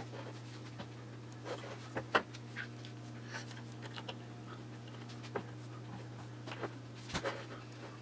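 Faint, scattered clicks and scrapes of a small Allen wrench turning the little screws that fasten a power resistor to a metal heater block, over a steady low hum.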